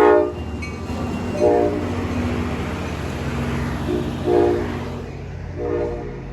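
Locomotive-hauled passenger train running past with a steady low rumble while the locomotive sounds a series of short horn blasts, the loudest right at the start.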